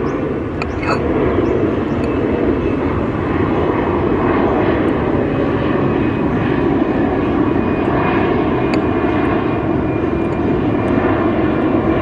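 Airplane flying low overhead, a loud steady engine rumble, with a few light clicks on top.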